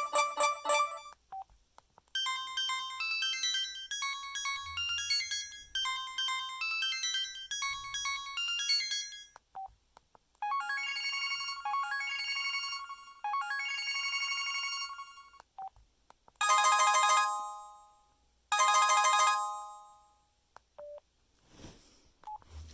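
LG AX145 cell phone playing its built-in ringtones through its speaker, one after another: the end of one tone, then two quick electronic melodies, then two long ringing tones of about a second and a half each, each fading out, with brief clicks between the tones.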